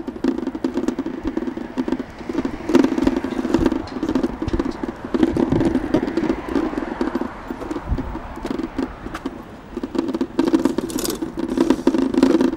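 Steady city street traffic noise, with scattered clicks and rattles over it.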